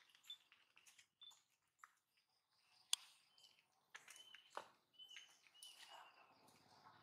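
Faint, short high-pitched chirps, three or four of them in the second half, among scattered soft clicks and one sharper click about three seconds in.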